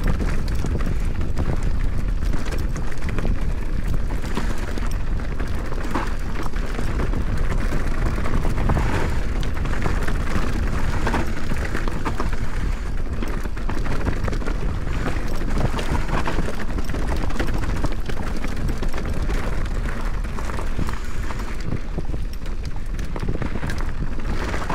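Mountain bike riding down a bike-park trail at speed: wind rushing over the camera microphone, with tyre and trail noise and the bike rattling and knocking over bumps.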